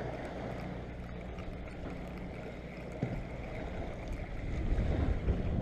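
Steady low hum of a fishing boat's machinery under a wash of sea-water and wind noise, swelling near the end, with one small click about three seconds in.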